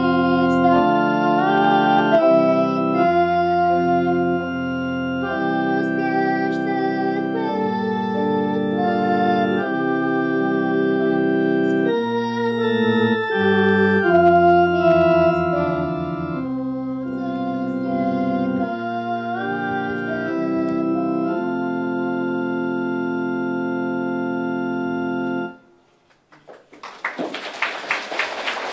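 Organ music playing slow sustained chords under a melody line, cutting off about three-quarters of the way through. After a short gap an audience begins applauding near the end.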